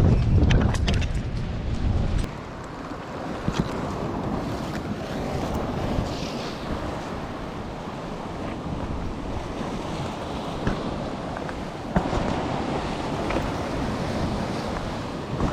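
Sea waves washing with wind buffeting the microphone, the wind heaviest for about the first two seconds, then a steady wash of surf.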